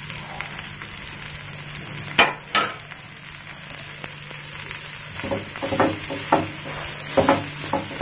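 Dosa frying on a hot tawa: a steady sizzle. Two sharp clicks come a little past two seconds in, then from about five seconds in a series of short scrapes as a flat spatula works under the dosa to turn it.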